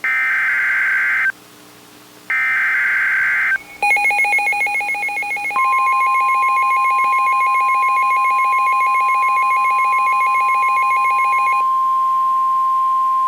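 Emergency Alert System tones that open a special marine warning. First come two more bursts of the warbling SAME data header, each about a second long. Then, a little under four seconds in, the harsh two-tone EAS attention signal sounds for about eight seconds. From about five seconds in it is overlapped by the steady single-tone NOAA Weather Radio alert tone, which carries on alone after the two-tone signal stops.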